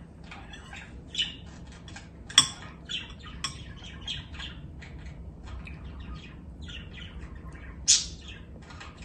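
Caged pet bird chirping and squawking in short, quick calls all through, with two louder, sharp notes about two and a half and eight seconds in.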